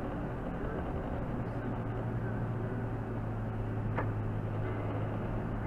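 Steady drone of a car driving, with road and engine noise heard from inside the cabin. A short tick comes about four seconds in.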